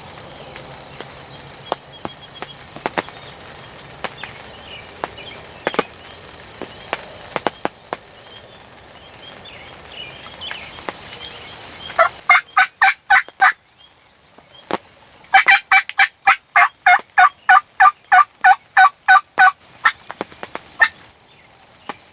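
Turkey yelping: a short run of sharp, evenly spaced notes about twelve seconds in, then a longer run of about sixteen notes at roughly four a second.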